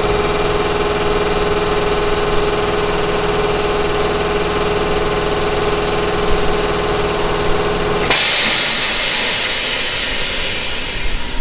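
Nankai 6000 series train's C-1000 air compressor running steadily, then cutting out about eight seconds in, followed by a loud hiss of air being released that fades away. This is the compressor stopping once the air reservoir is charged.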